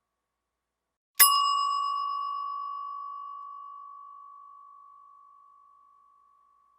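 A metal bell struck once about a second in, ringing at one clear pitch. Its brighter overtones fade within a couple of seconds, and the main tone dies away over about five seconds.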